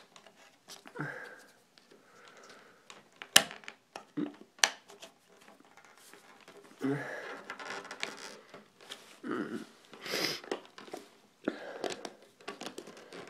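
A knife scoring and prying at a stiff clear plastic clamshell package, with sharp clicks and crackles of the hard plastic. A few short vocal sounds of effort fall between.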